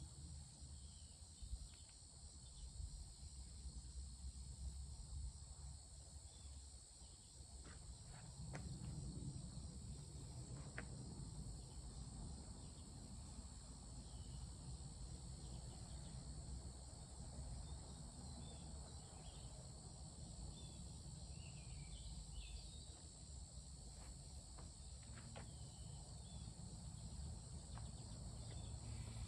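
A steady, faint chorus of insects such as crickets, a continuous high trill, over a low rumble. A few short higher chirps come in about three-quarters of the way through.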